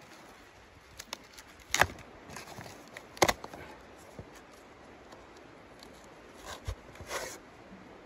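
A sheet of cardboard being bent and torn apart by hand to feed a wood stove: two sharp cracks early on as it is folded, scattered small clicks, and a few short tearing rips near the end.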